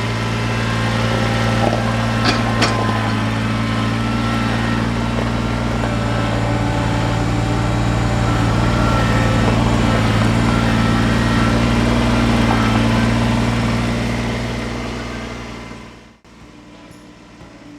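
Diesel engine of a loader tractor running steadily as it works a pile of crushed limestone, with a few brief clinks of stone about two seconds in. The engine fades away and cuts off near the end.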